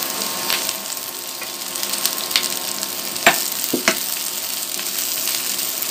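Chopped green capsicum, onion and garlic sizzling in hot oil in a frying pan while being stirred, with a steady hiss and a few sharp clicks.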